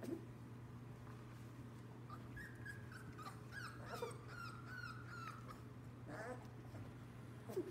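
Lab-mix puppies whimpering: a thin, high whine begins about two seconds in and runs for about three seconds, wavering up and down. Short yelps follow near the end.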